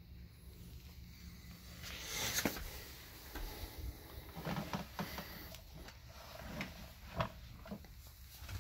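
Handling noise: a burst of rustling about two seconds in, then a handful of scattered light clicks and knocks over a low steady hum.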